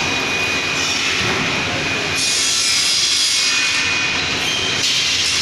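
Loud, steady machinery noise of a railway carriage workshop: a constant rushing hiss with a thin high whine running through it. Brighter surges of hiss come about two seconds in and again near the end.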